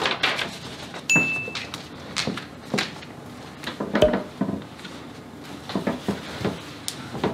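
A German Shepherd's claws clicking and tapping irregularly on wood and tile flooring as the dog walks in and sits down. A brief high-pitched tone sounds about a second in.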